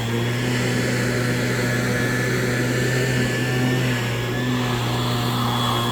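A steady engine hum with a low drone and a few higher steady tones, unchanging throughout.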